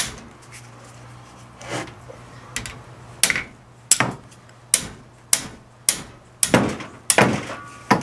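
Sharp metal knocks and clanks from a wrench working the ring-gear bolts on a Dana 44 differential carrier, with the cast carrier shifting against the wrench. The strikes come irregularly, about one every half second to a second, and fall closer together near the end.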